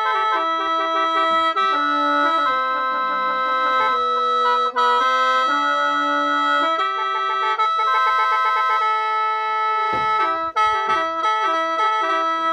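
Khaen, a bamboo free-reed mouth organ, played in lai noi mode: steady drone notes held under a melody of changing chords, with quick repeated notes and a couple of brief breaks.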